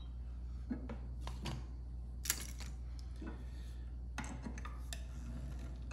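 Scattered light clicks and metallic scrapes of steel piano wire and hand tools being handled at a grand piano's tuning pins, as a new string is hooked into a tuning pin and a wooden-handled winding tool is set on it to coil the wire; the sharpest click comes a little over two seconds in. A steady low hum runs underneath.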